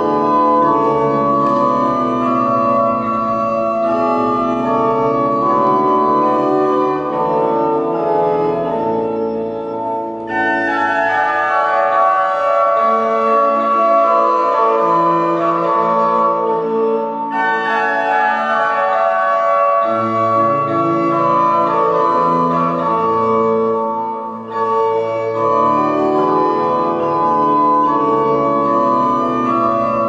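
Rieger pipe organ being played: full, sustained chords with slowly moving lines, dipping briefly between phrases twice.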